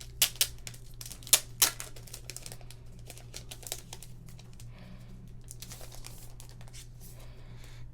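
Puzzle-package contents being handled: several sharp clicks and taps of card and plastic pieces in the first two seconds, then soft rustling of the packaging, over a steady low hum.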